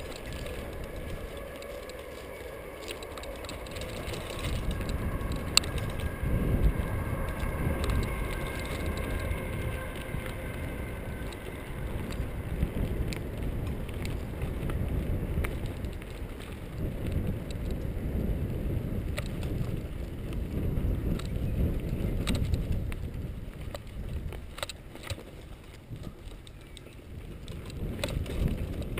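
Mountain bike ridden over a dirt trail: a steady rumble of tyres and wind buffeting the handlebar camera's microphone, with sharp clicks and knocks from the bike over bumps, the loudest about five seconds in.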